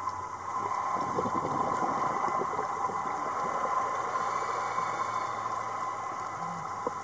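Underwater sound picked up by the camera: a steady hum with a dense crackle of bubbling underneath.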